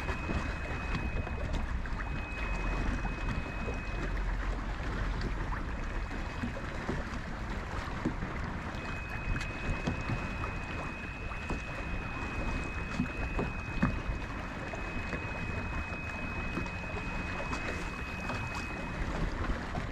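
Wind buffeting the microphone and water slapping against the hull of a small boat on a choppy bay, with scattered light clicks. A thin, high, steady whine runs for the first few seconds, stops, then comes back for much of the second half.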